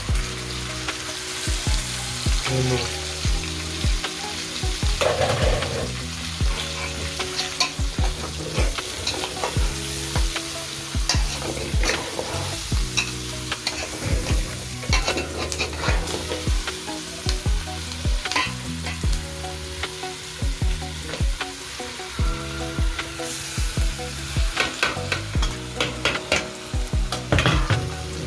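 Food sizzling in a cooking pot while it is stirred, with frequent sharp knocks and scrapes of the spoon against the pot.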